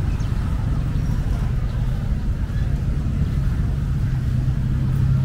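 An engine running steadily with a low hum over street noise, growing a little louder near the end.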